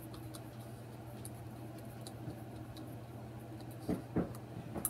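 Hand screwdriver turning a screw into an animatronic Santa's head base: faint, scattered small clicks and scratches over a steady low hum, with two soft knocks near the end and a sharp click at the close.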